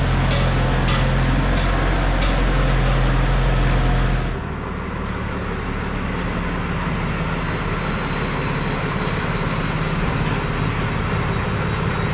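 Diesel truck engine running steadily with a strong low hum. About four seconds in, the sound drops abruptly to a quieter, duller engine drone.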